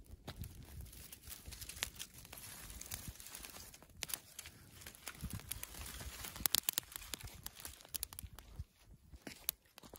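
Pile of dry brushwood burning, with twigs crackling in sharp, irregular snaps that come thickest a little past the middle.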